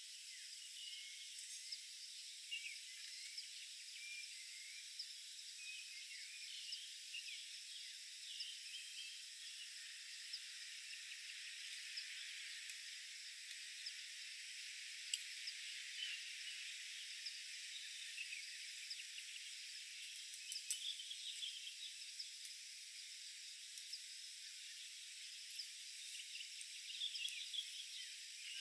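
Forest ambience: a steady high hiss with thin, unbroken high-pitched insect buzzing and scattered short chirps, and a few faint clicks.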